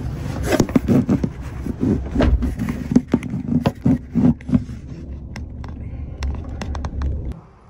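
Handling noise from a phone that is still recording while it is carried and covered: a run of clicks, knocks and scrapes over a low rumble, thinning out after about five seconds, with the rumble dropping away suddenly near the end.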